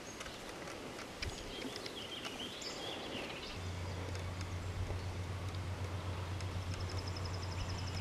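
Rural outdoor ambience: faint bird chirps and a few small clicks, then a steady low hum sets in about halfway through and holds. A fast, high trill comes near the end.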